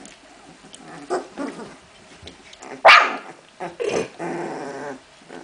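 Young Hungarian vizsla puppies play-fighting, with small growls and yips. One sharp, loud yelp comes about three seconds in, followed by a drawn-out call lasting about a second.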